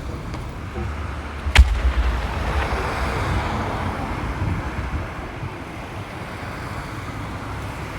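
A 30 cm shakudama firework shell bursting overhead with one loud boom about a second and a half in. A long crackling hiss follows and fades away over several seconds.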